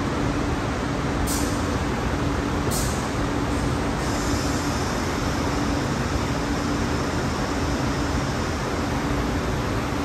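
Steady, dense industrial machinery noise with a faint steady hum, broken about a second in by two short sharp hisses a second and a half apart, like compressed air being let out.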